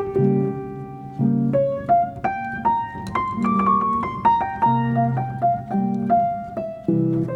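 Piano music: a melody over repeated chords, notes struck about twice a second.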